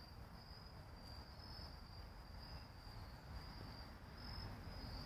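Crickets chirping: a faint, steady high trill in short, evenly repeating pulses.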